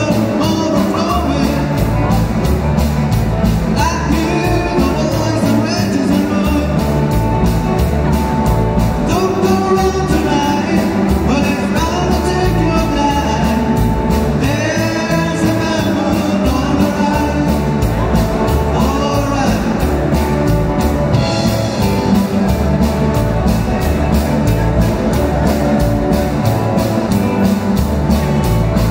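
Live rock band playing at full volume: electric guitars, electric bass and a drum kit keeping a steady beat, with a sung lead vocal through the PA.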